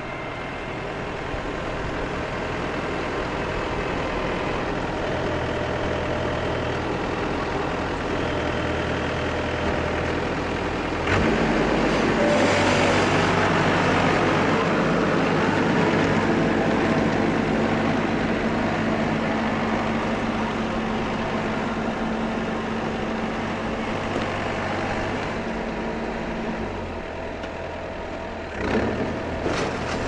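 Yanmar AW82GV rice combine harvester running steadily, engine and machinery together. The sound steps up louder about a third of the way in, and there is a brief sharp rise near the end.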